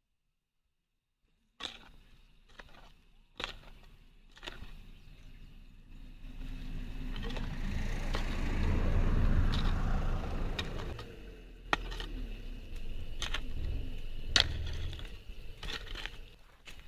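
Pickaxe striking stony soil: a series of sharp knocks at uneven intervals, starting after a short silence. A low rushing noise swells and fades in the middle.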